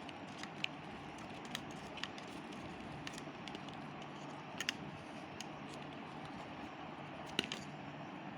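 Scattered light clicks and taps, two of them coming in quick pairs, over a steady background hiss and faint hum.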